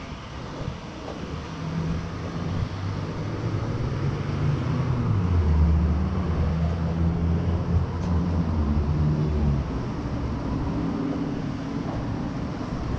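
Street traffic: a motor vehicle's engine drones past on the road beside the footpath. It grows louder to a peak about halfway through, then fades away.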